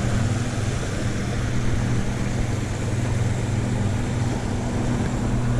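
Steady rush of water pouring over a small creek spillway, with a constant low hum beneath it.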